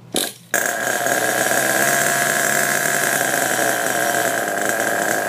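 Nitro G3.0 RC car engine firing up, its glow plug heated by a homemade AA-battery igniter clipped on with alligator wires: a brief burst, then about half a second in it catches and runs steadily.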